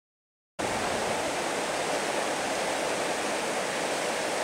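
Whitewater of a river rapid rushing in a steady, even wash of noise. It cuts in suddenly about half a second in, after dead silence.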